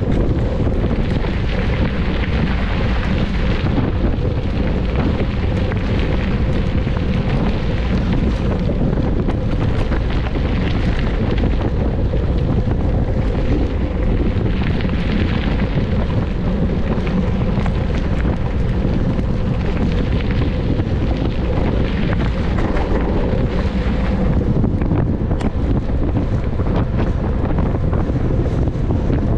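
Steady low wind rumble buffeting the microphone of a camera on a mountain bike racing at speed, with scattered light clicks and rattles.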